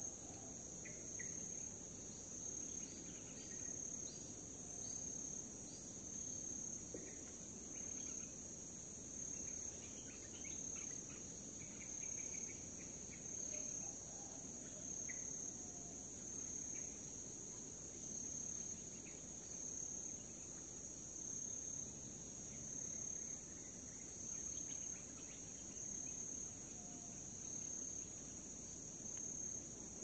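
A high, steady insect trill, cricket-like, swelling in a regular pulse about every one and a half seconds, over faint scattered bird chirps in a tropical forest.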